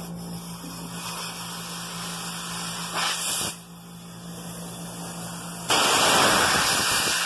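Nitrogen gas hissing as it is blown through a refrigeration condenser coil from a hose into a cut copper tube, flushing it out. A short louder burst comes about three seconds in, and a loud, steady rush starts near six seconds.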